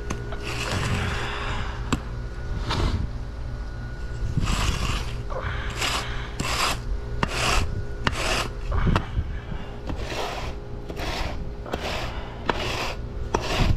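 Long spirit level dragged back and forth across a bed of paver sand, screeding it flat by hand: repeated gritty scraping strokes that come about one and a half a second from about four seconds in, over a steady low hum.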